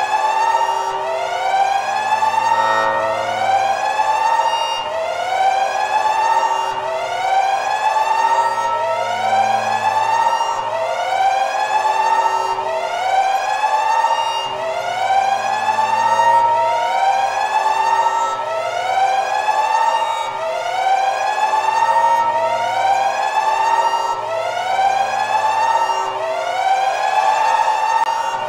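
Electronic warning siren wailing in repeated rise-and-fall sweeps, about one every 1.3 seconds, over a low drone: an alarm sounding for the battery overcharging.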